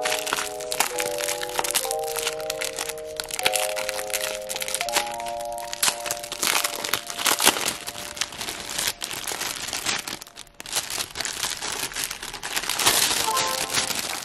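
Clear plastic cellophane wrapping crinkling and crackling as it is handled and peeled off rolls of washi tape, in dense irregular crackles. Light background music with chime-like notes, clearest in the first few seconds.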